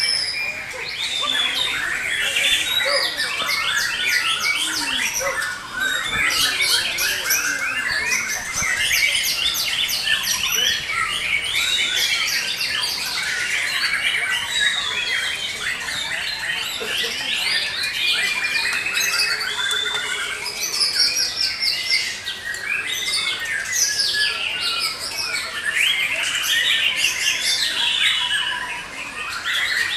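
Several caged white-rumped shamas (murai batu) singing at once, a dense overlap of loud whistles, gliding notes and fast repeated trills with no pause.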